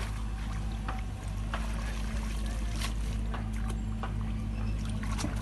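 Light splashing and sloshing of shallow water as a fishing net with its catch is dunked and rinsed by hand, over a steady low hum.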